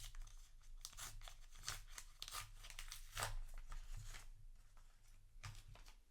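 A trading-card booster pack wrapper being torn open and crinkled, with a run of crackling tears for a few seconds and a few more rustles near the end.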